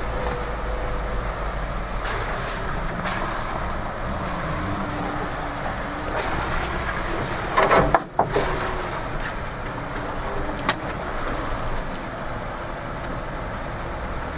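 Inside a Jeep Wrangler crawling over a rough dirt trail: steady low engine and tyre noise, with a few knocks as it goes over the bumps. The loudest is a short cluster of knocks about halfway through.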